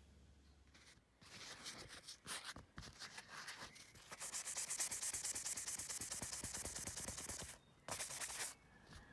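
Rapid scraping, rubbing strokes on a surface, in spells of a few seconds. The longest and loudest spell starts about four seconds in.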